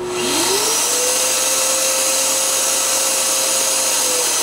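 Festool CT 26 dust extractor switching on: its motor whine rises in pitch as it spins up over about half a second, then it runs steadily with a strong rushing hiss, the whine dipping slightly in pitch near the end.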